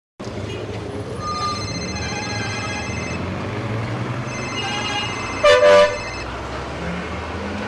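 City street traffic with car horns honking: long horn blasts over a steady rumble of engines, and a loud short honk about five and a half seconds in.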